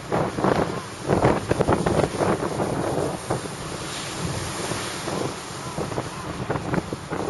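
Strong gusts of wind buffeting the microphone in uneven blasts over the rush of storm-driven waves breaking. The gusts are heaviest in the first few seconds, then ease into a steadier hiss of surf.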